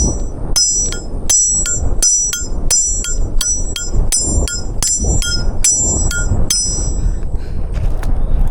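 Hammer driving a metal nail into a tree trunk, struck about three times a second with a bright metallic ring on each blow. The blows stop about seven seconds in.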